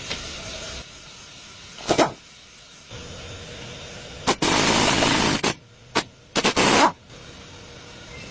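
A pressurized spray hissing in short bursts: one brief blast about two seconds in, then one lasting about a second, then a few quick ones close together.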